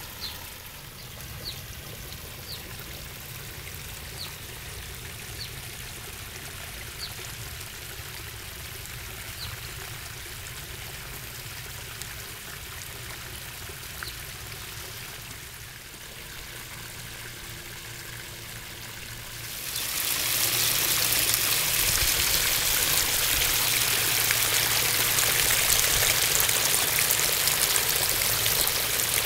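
Water of a small pond's three-tier waterfall splashing and trickling down the cascades, a steady rush of water. About twenty seconds in it becomes much louder and brighter.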